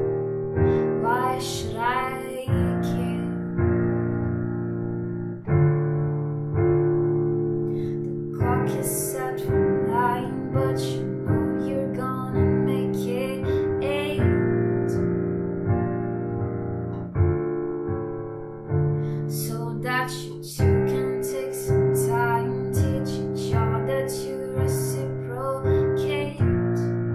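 A woman singing while accompanying herself on a digital piano, with chords struck about once a second under her voice.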